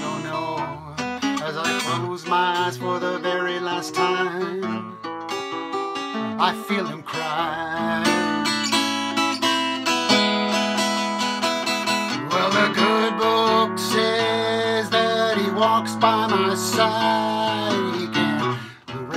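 Acoustic guitar playing a solo blues passage with the thumb and fingers, some notes bending in pitch.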